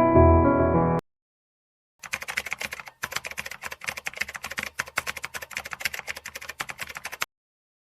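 A piano phrase ends about a second in. After a short silence comes computer keyboard typing: a quick, uneven run of key clicks lasting about five seconds, with a brief break near the start.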